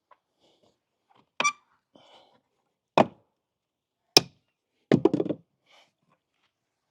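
Sharp wooden knocks, one every second or so, then a quick clatter of several knocks together near the end: old nailed deck boards being pulled up and handled.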